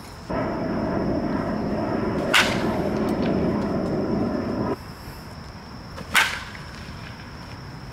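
Baseball bat striking pitched balls in batting practice: two sharp cracks about four seconds apart. A steady rushing noise runs under the first crack and cuts off abruptly before the second.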